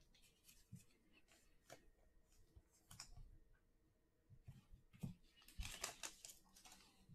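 Faint clicks and rustles of trading cards and a foil-wrapped card pack being handled, busier in the last two seconds.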